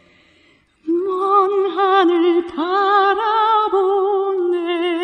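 Soprano singing a Korean art song, unaccompanied: after a short pause she comes in about a second in and holds a long phrase with wide vibrato.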